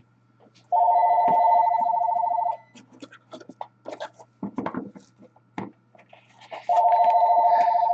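A telephone ringing twice, each ring a trilling two-tone burst of about two seconds, with about four seconds between rings. Light clicks and rustles come in between the rings.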